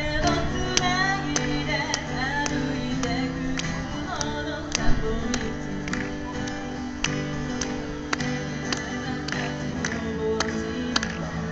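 A woman singing over a steadily strummed acoustic guitar, a live amplified performance. The singing is clearest in the first few seconds, with the guitar strums going on in an even rhythm.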